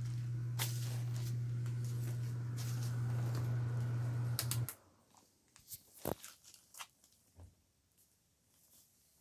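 A steady low electrical hum that cuts off suddenly about halfway through. Scattered sharp clicks and cracks from the roof run throughout and stand out once the hum stops.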